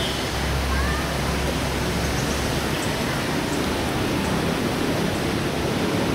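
Steady rushing noise, with a low rumble for the first couple of seconds and two faint short chirps about a second in.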